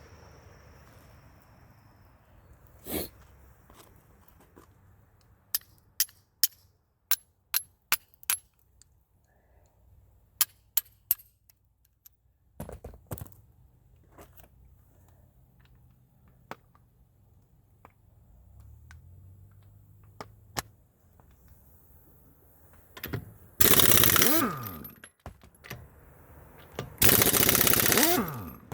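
Impact wrench hammering in two loud bursts of about a second and a half near the end, its motor winding down after each, while working the lug nuts of a car's front wheel during a tire change. Earlier come a string of separate sharp clicks.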